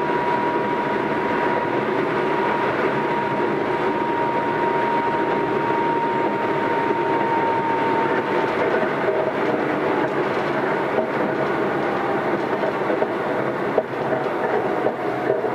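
Keisei AE100-series limited-express car running at speed, heard from inside: a steady rumble of wheels on rail with a few sharp rail-joint clicks in the second half. A faint whining tone slowly falls in pitch and fades out about halfway, over a weak air-conditioning blower.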